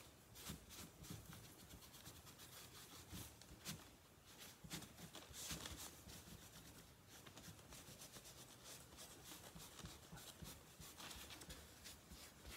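Faint, irregular swishing of a cloth rubbing over a painted, waxed panel as excess white wax is wiped back.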